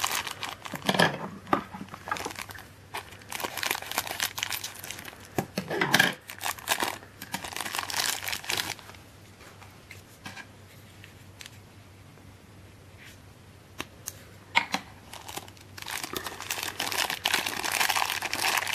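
Thin clear plastic bags crinkling as small plastic figures are unwrapped by hand, in repeated bursts, with a quieter stretch of a few light clicks in the middle.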